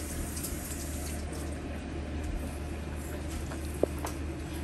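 Steady kitchen background noise, a low hum under an even hiss, with a single short click near the end.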